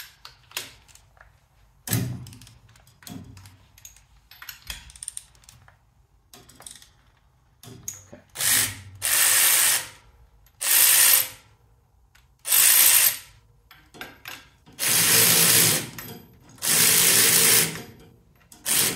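Harbor Freight electric ratchet spinning in five runs of about a second each in the second half, loosening the Ford Model A engine's manifold nuts one at a time. Before that come scattered clicks and knocks of the tool being fitted onto the nuts.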